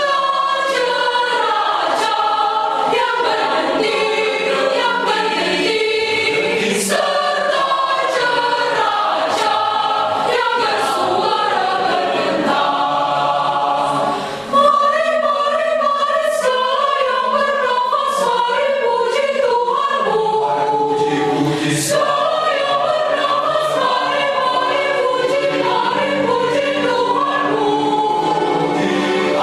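Mixed choir of young men and women singing in parts, with a brief dip in loudness about halfway before the singing comes back in full.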